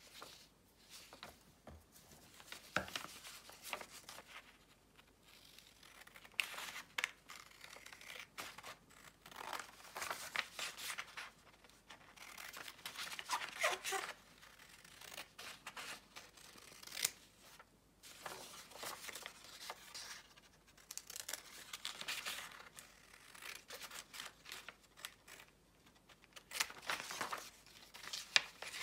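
Paper rustling and crinkling as sheets and envelopes are handled and folded, in irregular soft strokes. Scissors cut paper near the end.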